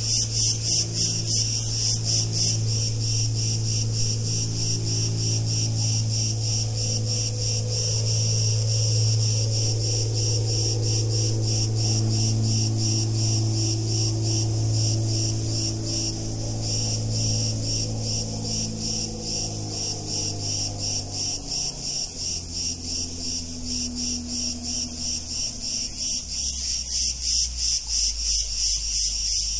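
Cicadas chirring in a loud, rapidly pulsing chorus. Beneath it is a steady low hum that drops lower in pitch about two-thirds of the way through.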